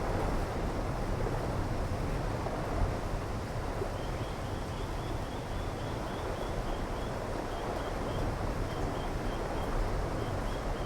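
Steady rain noise, a dense even hiss with a heavy low rumble. From about four seconds in, a faint high chirp repeats about three times a second over it.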